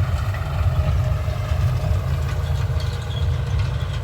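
A John Deere 5050D tractor's diesel engine running steadily.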